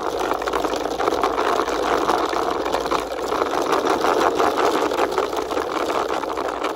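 Toy rickshaw pushed along by hand, its small wheels and gearing giving a steady rattling whirr of rapid clicks.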